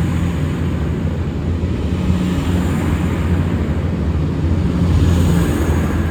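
V/Line VLocity diesel railcar set running at the station. Its diesel engines make a loud, steady low drone over a wide rumble, and the sound builds a little in level.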